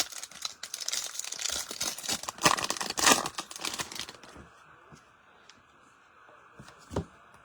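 Wrapper of a Bowman baseball card pack being torn open and crinkled, dense crackling for about four seconds. It then goes quiet, with one soft thump near the end.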